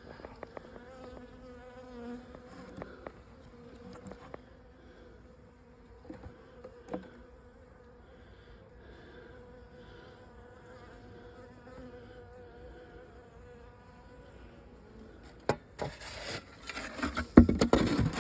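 Honeybees buzzing as a faint, steady hum, with a few light clicks. A sharp knock comes near the end, then louder rustling and knocking.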